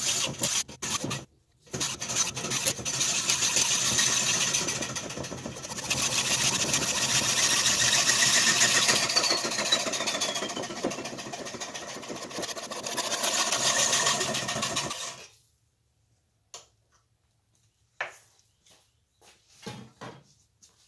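Hand hacksaw cutting through a metal pipe nipple: steady back-and-forth rasping strokes, with a brief pause about a second and a half in, stopping about 15 seconds in. A few light clicks and knocks follow as the cut piece is handled.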